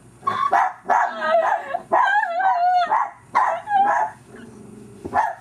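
A dog yapping and whining in a run of loud pitched calls that waver up and down, each about half a second to a second long.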